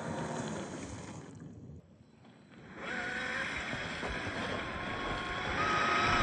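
Electric motor and gear whine of a 1/10 scale Traxxas TRX4 RC crawler with a 550-size 21-turn motor, its pitch rising and falling with the throttle. It drops out briefly about two seconds in, then carries on.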